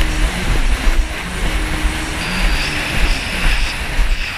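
Yamaha jet ski's engine running under way on choppy open water, its pitch wavering up and down, with heavy uneven low buffeting from wind and chop on the camera.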